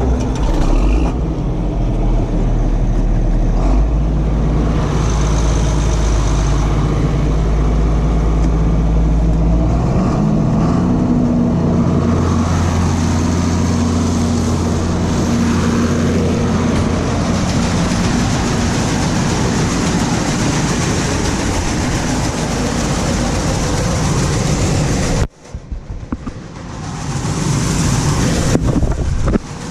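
Heavy farm machinery running steadily under load, a large engine with a deep, even drone; its note changes about ten seconds in, and the sound cuts out briefly near the end before picking up again.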